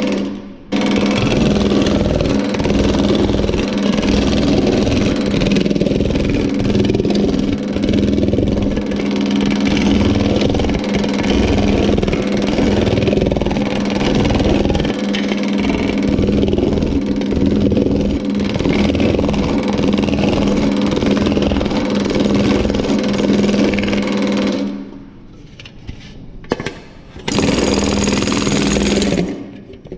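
Power hammer running, rapidly pounding a sheet-metal panel over a high-crown nylon-topped lower die, with a steady motor hum under the blows. It stops about 25 seconds in, runs again for about two seconds, and stops near the end.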